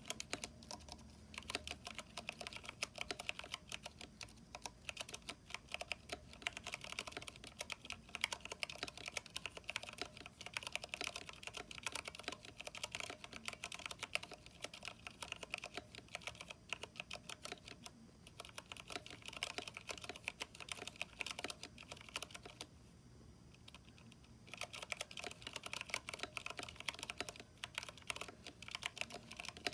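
Typing on a Vortex 10th Anniversary Edition mechanical keyboard fitted with NP PBT keycaps and lubed stabilizers: a fast, continuous clatter of keystrokes. About three quarters of the way through, the typing pauses for roughly two seconds.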